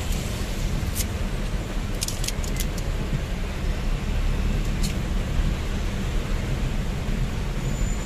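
Steady vehicle engine and road rumble heard from inside the cab, with the hiss of heavy rain on the windscreen and wet road. A few sharp clicks come about a second in, a cluster around two to three seconds in, and one near five seconds.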